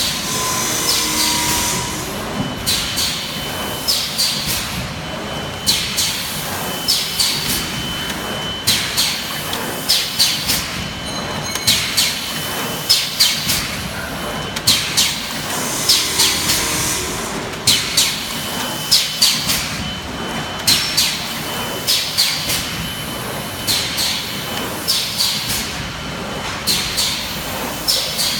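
BGS-240P plastic ampoule forming, filling and sealing machine running through its cycle: groups of quick clicks and short high hisses come round about every three seconds over a steady machine noise.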